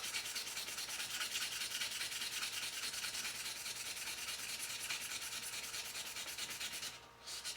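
Wet 320-grit wet-and-dry sandpaper rubbing back and forth on a Swiss Army knife's cellidor scale in quick, even strokes, sanding off a printed logo. The rubbing stops about a second before the end, with one short scrape after it.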